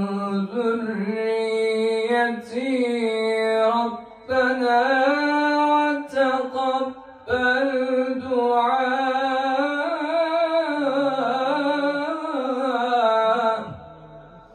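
A man's voice in melodic Quran recitation (tilawa), drawing out long ornamented notes that waver and glide up and down. He pauses for breath about 4 and 7 seconds in. The voice stops shortly before the end.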